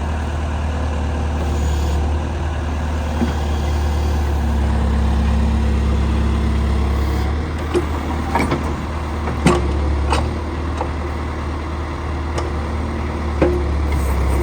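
1997 John Deere 310E backhoe loader's diesel engine running steadily, with several sharp knocks past the middle and one more near the end.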